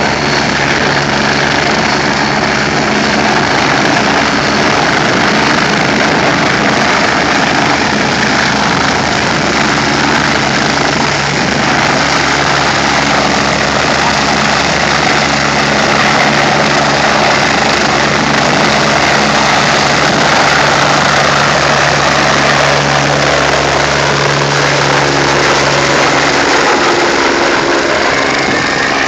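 Helicopter's turbine engines and main rotor at take-off power as it lifts off the helipad and climbs away: a steady hum under a loud rushing of rotor wash. The low hum fades out a few seconds before the end as the helicopter moves off.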